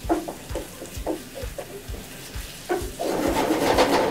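Wooden spatula scraping and stirring ground-chicken and natto keema curry in a frying pan, in repeated strokes two or three a second. About three seconds in, the sizzling of the pan gets louder and thicker.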